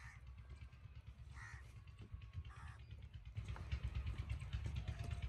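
A bird calling three times in short harsh calls during the first three seconds, over a steady low rumble that grows louder a little past halfway.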